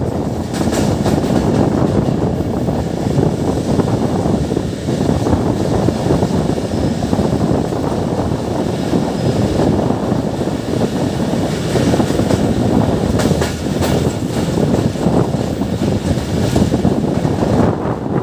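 Passenger train running along the track, heard from beside a moving coach: a steady loud rumble of the wheels on the rails, with a few short sharp clicks.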